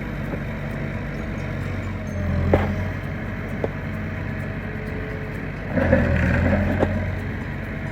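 Heavy equipment engine running steadily and revving up twice, with a few sharp metallic knocks.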